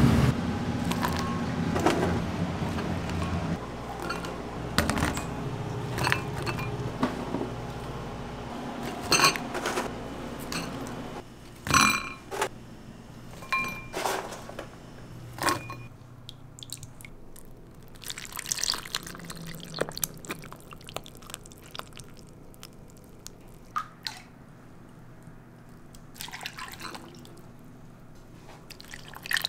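Bean soup being ladled from a large metal pot into ceramic bowls: liquid pouring and dripping, with a handful of sharp ringing clinks of the ladle and bowls around the middle. A low hum fills the first few seconds.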